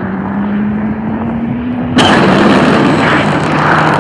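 Film sound of a hypersonic jet in flight under strain: a dense, loud rumble with a steady tone creeping slowly upward. About two seconds in, a sudden sharp bang sets off a louder, harsher rush that stays up.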